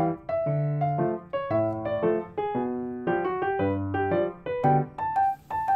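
Background piano music: a light tune of chords and melody notes struck in a steady, bouncy rhythm, each note fading after it is struck.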